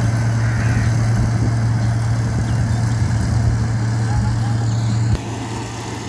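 Kubota SR55 mini combine harvester running steadily while cutting paddy, a loud low engine hum. About five seconds in the sound drops suddenly to a quieter level.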